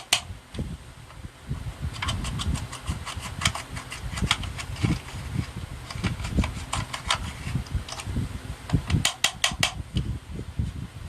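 Slime being squished and worked, with irregular crackling clicks and soft low thuds throughout.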